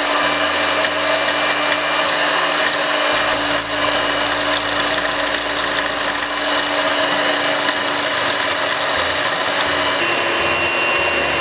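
Electric hand mixer running steadily, its twin beaters whipping egg whites in a glass bowl for meringue as sugar is added gradually. The motor note shifts slightly higher near the end.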